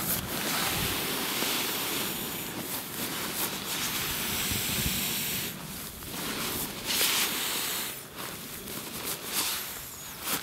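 Nylon pump sack being squeezed to push air through the valve into an Exped down-filled sleeping mat: a rushing hiss of air with rustling fabric. The hiss is steady for about five seconds, then comes in two shorter bursts, and is quieter near the end.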